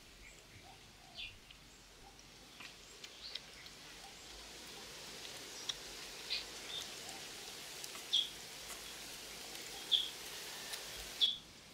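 Birds chirping in short high calls every second or two over a hiss of outdoor noise that builds and cuts off suddenly near the end.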